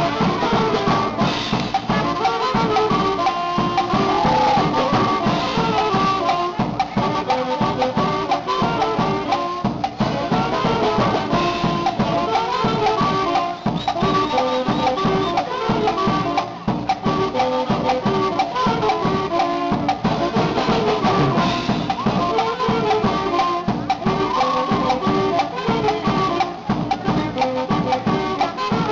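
Dance music from a band with brass and drums, playing a melody over a steady beat.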